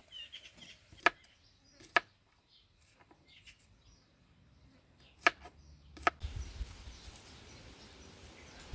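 Four sharp knocks in two pairs, each pair about a second apart, with faint chirps early on; a steady low background rumble takes over about six seconds in.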